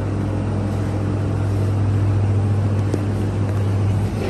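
Small electric motor humming steadily with a low, even tone, cutting off a little before the end.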